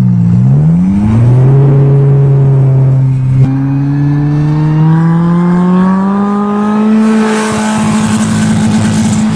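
Nissan 200SX engine run hard through an upright muffler stack on the hood. The revs dip and rise in the first seconds, then after a cut about three and a half seconds in the pitch climbs steadily as the car accelerates up a gravel drive towards the listener. Gravel and tyre hiss join near the end as it comes close.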